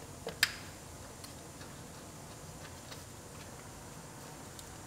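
Faint, scattered small metal clicks and ticks as valve cover studs are threaded in by hand, with one sharper click about half a second in.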